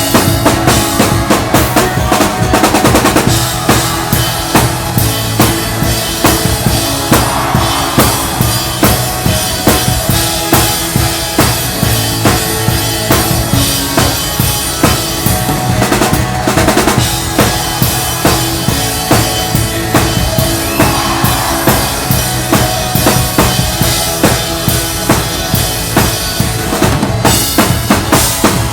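Live drum kit playing a steady, driving beat of kick and snare with cymbals, along with a worship band's sustained bass and chords.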